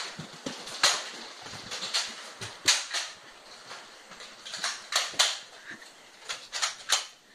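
Nerf foam-dart blasters firing, about seven sharp pops at irregular intervals, several in quick succession near the end.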